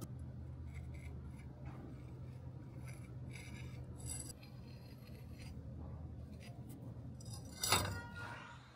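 Light metallic clinks and scrapes of metal being handled over a steady low hum, with one louder, ringing metal clink near the end.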